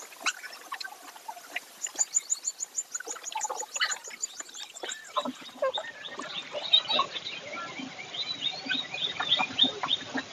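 Rapid, high chirping trills come in runs, denser in the second half, over scattered clicks and knocks from cows eating at a trough.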